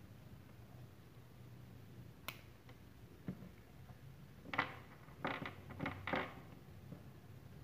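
Hands handling the small parts of a Boya BY-M1 lavalier microphone: a sharp click about two seconds in, a lighter tap a second later, then a run of short rustles and clicks around the middle as a small part is picked up from the table.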